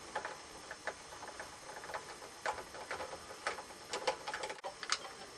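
Irregular light metallic clicks and taps of a 5/16 wrench working bolts loose on a small Briggs & Stratton engine's carburetor mounting.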